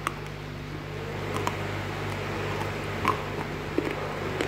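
Someone biting and chewing a crunchy piece of roasted multani mitti (fuller's earth clay), a few sharp, irregular crunches over a steady low hum.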